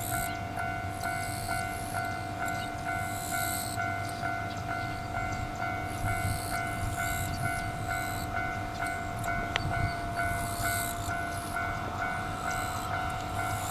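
Japanese level-crossing warning bell ringing, a steady electronic clang repeating about twice a second, over a low rumble.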